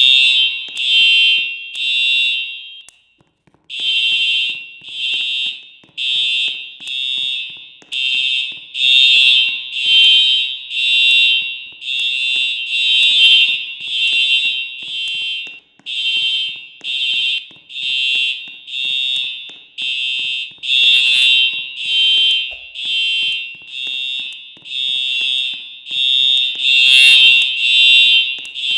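Simplex fire alarm sounding its evacuation signal: loud, high, harsh tone pulses repeating about once a second, with a brief gap about three seconds in.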